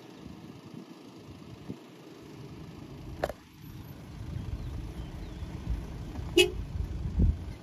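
Off-road vehicle engine running with an uneven low rumble, broken by two short sharp knocks, one about three seconds in and one near the end.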